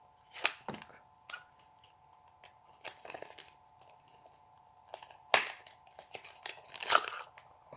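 A small cardboard product box being opened and handled: scattered crinkles, taps and scrapes of cardboard and packaging, the loudest about five and a half and seven seconds in, over a faint steady hum.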